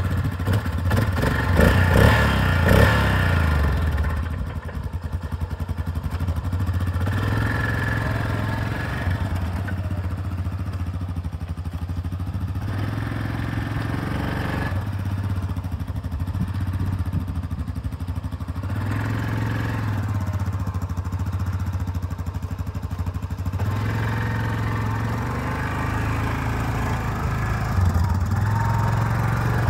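2013 Yamaha Grizzly 700 ATV's single-cylinder engine running as the quad is ridden around, revved several times in the first few seconds, then held at a steady low throttle with small changes in speed, and given more throttle near the end.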